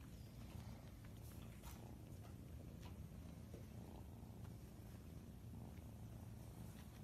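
Faint steady cat purring, a low fluttering rumble, with a few light taps as the kitten steps about in the plastic tubs in the first three seconds.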